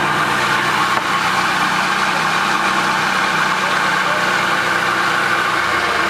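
The 27 hp Kohler engine of a Peterson swing-blade portable sawmill running steadily, not cutting.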